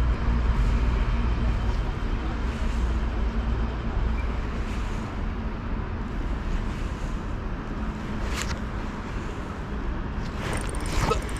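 Steady low rumble of city background noise, with a short sharp click about eight seconds in and a few more near the end.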